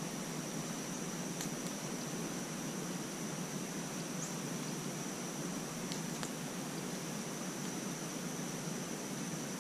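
Quiet woodland ambience: a steady hiss with one continuous high-pitched insect drone, and a few faint ticks.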